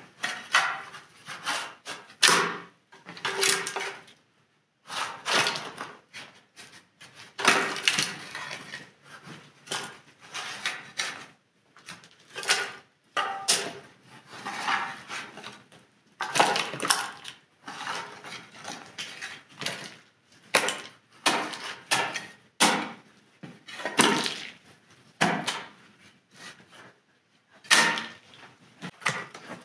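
Metal hand trowels scraping and scooping mud off a small rug and tipping it into a bucket: irregular scrapes and knocks with short pauses between them.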